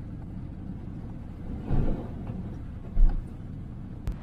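Motorhome driving through heavy rain and standing water, heard from inside the cab: a steady low road and engine rumble. A broader swell comes about two seconds in, a heavy low thump about three seconds in, and a sharp click near the end.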